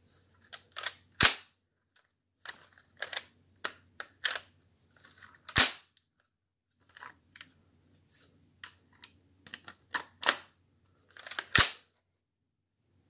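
Lego-brick AR-15 replica's mechanism being worked by hand: runs of plastic clicks and rattles, broken by three sharp, loud snaps of the action.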